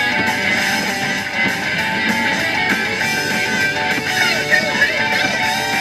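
Music with strummed guitar.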